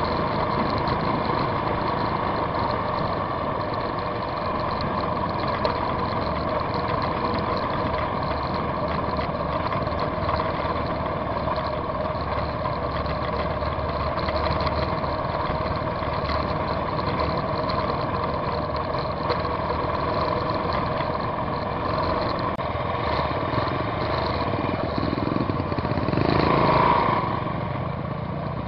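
Motorcycle engine running steadily under way, a constant engine note heard from on board the bike. Near the end it swells louder for about a second.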